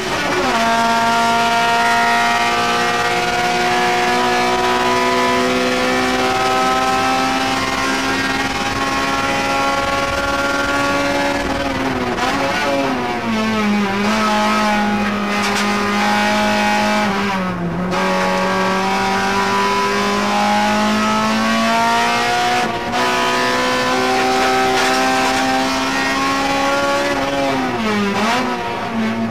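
Honda Civic EG6 SiR-II's stock N1-spec 1.6-litre DOHC VTEC four-cylinder heard from inside the race car's cabin, held at full throttle with the pitch climbing slowly for long stretches. The revs drop sharply and pick up again a few times, around the middle and near the end, at gear changes.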